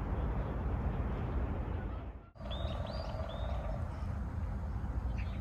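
Outdoor ambience: a steady low rumble with a few short bird chirps. The sound drops out briefly about two seconds in, followed by a short steady hum under the chirps.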